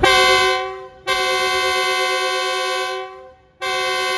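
Diesel locomotive air horn sounding the departure signal: a short blast, then a long one, then a third long blast starting near the end.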